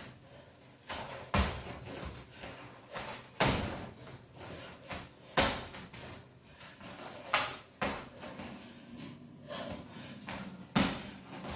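Sneakers landing with thuds on a wooden floor during jumping cardio exercises, the loudest landings about every two seconds, with lighter footfalls in between.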